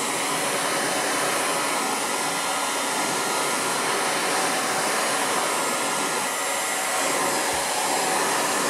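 Electric heat gun running steadily, a constant rush of blown air, aimed at hardened window putty to soften it.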